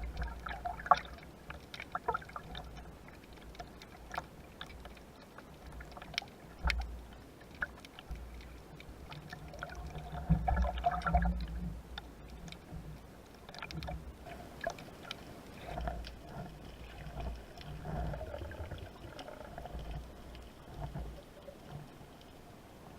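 Water sloshing and gurgling around the microphone, with scattered sharp clicks and low thumps, busiest about ten seconds in.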